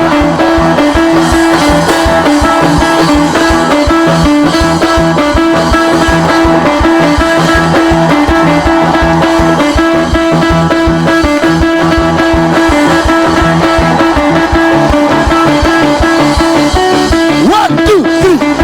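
Upbeat band music with guitar and bass over a steady beat. A short sliding pitch, like a whistle or a voice, rises and falls near the end.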